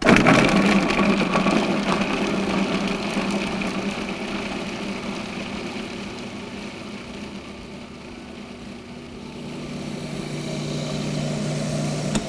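Food processor with a blade attachment running, mincing chunks of unpeeled ginger. It starts abruptly and is loudest at first, eases off, rises again near the end, and then cuts off.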